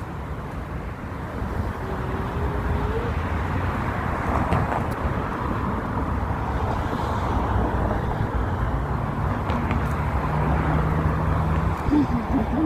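City street traffic: a steady rush of cars driving past. A vehicle engine's steady low hum joins in the last few seconds.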